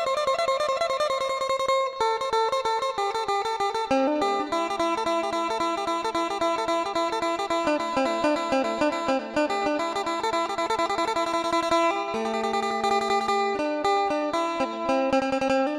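Phin, the Isan Thai lute, played fast in the upbeat phin sing style: a quick picked melody over a steady drone string.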